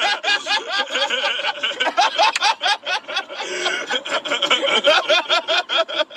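Several people laughing hard together, overlapping fits of laughter in quick, breathy bursts.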